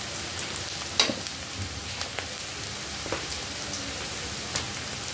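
Rice and vegetables stir-frying in a steel wok, a steady sizzle, with a metal spatula clinking and scraping against the wok a few times; the sharpest clink comes about a second in.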